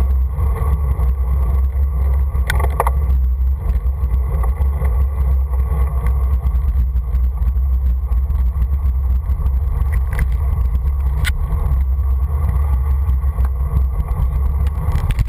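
Wind rumbling on a bicycle-mounted action camera's microphone during a road bike descent, with tyre noise on the asphalt. A few short sharp clicks come through, one pair about two and a half seconds in and two more near ten and eleven seconds.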